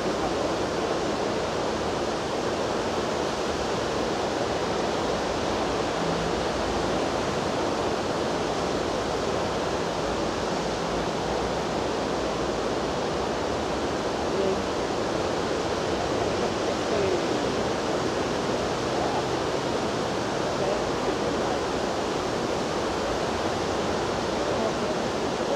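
River water rushing steadily over a shallow, broken riffle.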